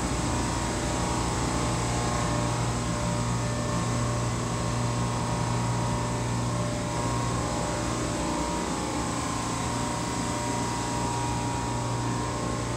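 Steady drone of a container ship's engine-room machinery: a strong low hum with a few fainter steady tones over an even hiss.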